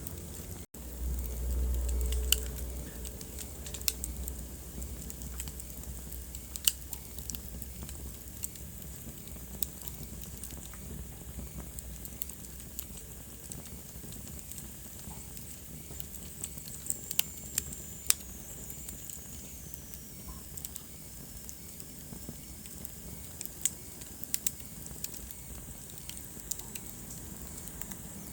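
Wood fire crackling in a fireplace: irregular sharp pops over a steady hiss, with a low rumble loudest in the first few seconds. The sound drops out briefly just after the start, and a faint high whistle slowly falls in pitch a little past the middle.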